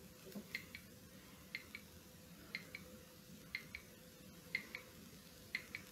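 Faint clock ticking: a pair of light ticks, about a fifth of a second apart, once every second, over a faint steady hum.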